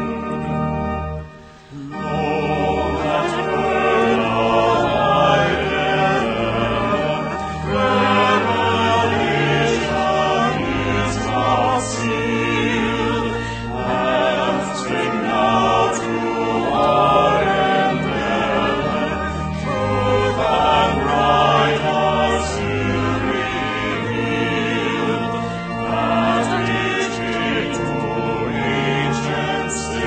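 Small vocal ensemble singing a choral piece in harmony, with a short break about a second and a half in before the next phrase.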